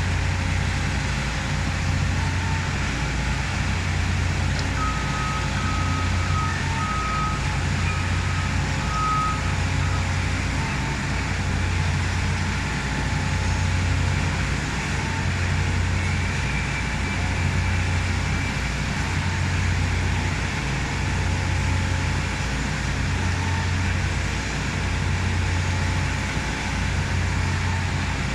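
Heavy construction machinery running steadily, its low drone swelling and fading about every second and a half. About five seconds in, a reversing alarm beeps about five times, roughly once a second.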